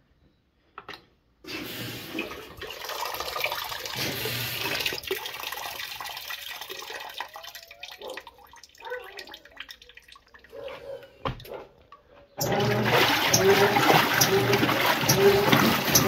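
General Electric top-load washing machine: water runs into the tub, then about twelve seconds in the agitator starts and a louder sloshing begins, with a regular swish about one and a half times a second. The washer is agitating after its faulty speed sensor was replaced.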